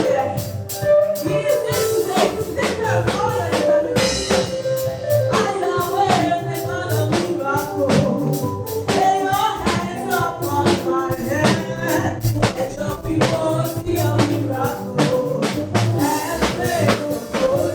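A gospel praise band playing with a drum kit and bass under voices singing, a steady upbeat groove.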